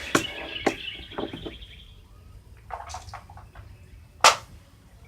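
Birds chirping and warbling, with a few light clicks early on and one sharp, loud click a little after four seconds in.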